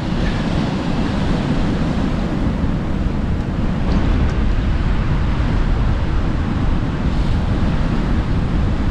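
Sea surf breaking on a beach, mixed with wind buffeting the microphone: a steady, unbroken rush that is heaviest in the low end.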